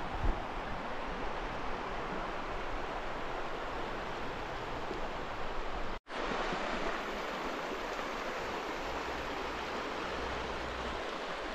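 Shallow river running over a cobble riffle: a steady rush of water, with a momentary dropout about halfway through.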